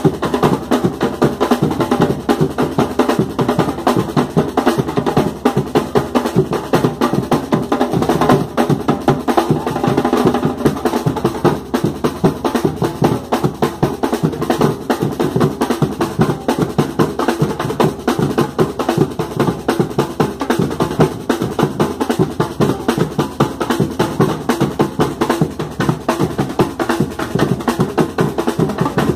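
Street percussion band drumming in a fast, steady groove: surdo-style bass drums struck with mallets under snare-type drums played with sticks, with no break.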